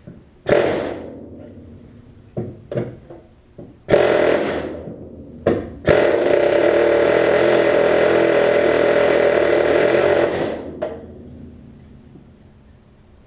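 Pneumatic air chisel hammering out a car door's hinge pin: a few short bursts, then one steady run of about four and a half seconds that stops near the end.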